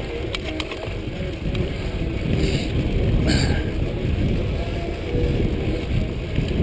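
Mountain bike ridden along dirt singletrack: wind rumbling on the chest-mounted camera's microphone over tyres rolling on the trail, with a few sharp rattling clicks from the bike and a couple of brief hissing scuffs near the middle.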